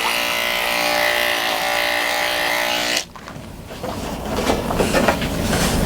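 Electric dog grooming clippers buzzing steadily, switched off abruptly about three seconds in, followed by irregular crackling and rustling handling noise.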